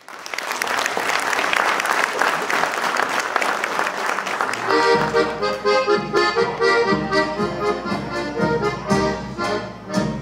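Audience applause, then about five seconds in a solo accordion starts the introduction of a Polish Christmas carol, a melody over a rhythmic, pulsing bass.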